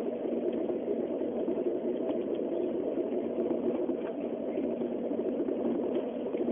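Steady running noise of a Shinkansen Nozomi train at speed, heard inside the passenger cabin. A few faint ticks and rattles sound over an even rumble.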